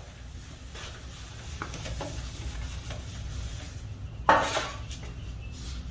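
Kitchenware being handled while a baking pan is oiled so the cake won't stick: light scrapes and small clinks, then one louder clatter about four seconds in, over a low steady hum.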